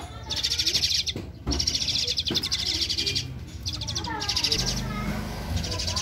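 Javan pied starling (jalak suren) chattering in rapid, high trills that come in runs with short breaks, with a few lower whistled notes about four seconds in.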